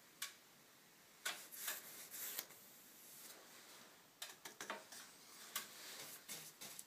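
Synthetic-bristle paintbrush stroking paint onto a wall along the ceiling line: faint, short rubbing swishes in small clusters, with pauses between them.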